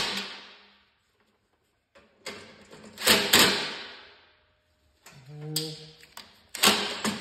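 Cordless impact driver on the bolts of a snowblower's scraper blade: a long hammering run cuts off at the start, then after a pause come several short bursts of hammering with sharp clicks, as the bolts are snugged up.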